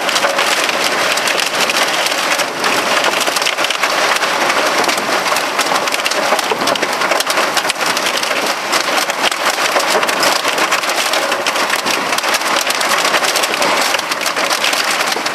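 Heavy, wind-driven storm rain pelting the car's windshield and body, a dense steady rush full of sharp little hits.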